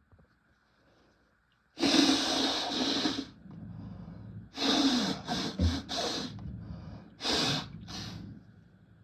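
A person breathing hard through the nose and mouth after a fit of sneezing: several loud rushes of air from about two seconds in, the first the longest, with quieter breaths between.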